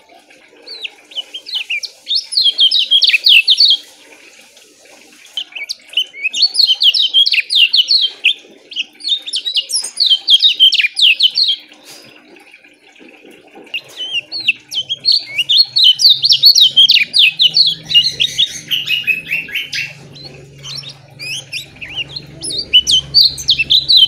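A caged kecial kuning, a yellow white-eye, singing loudly in repeated bursts of fast, tightly packed chirps. Each burst lasts a few seconds, with short pauses between.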